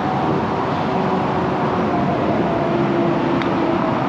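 Steady outdoor background noise, like nearby road traffic, with faint humming tones. A faint tick about three seconds in as a putter strikes a mini-golf ball.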